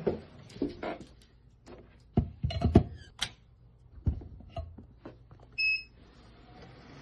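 Scattered knocks and clicks of tools and parts being handled on a workbench, loudest a couple of seconds in, then a single short electronic beep from bench equipment near the end.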